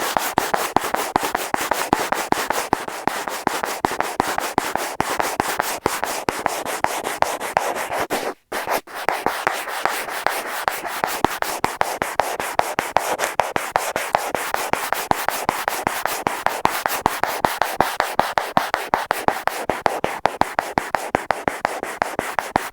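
Fingers and fingernails scratching rapidly on a wall, picked up up close by an earphone microphone stuck to the wall, with a brief pause about eight seconds in.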